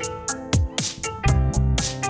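Background music with a steady beat: electronic drums, bass and plucked-string notes.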